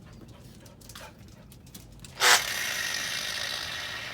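Angle grinder switched on with a sharp burst about two seconds in, then spinning with a steady high whir that gradually fades.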